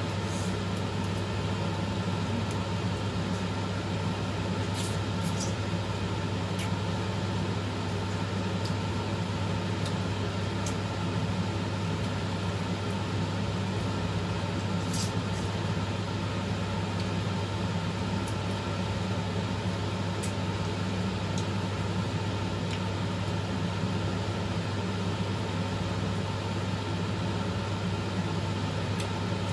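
Steady low machine hum from an appliance or fan running without change, with a few faint clicks over it.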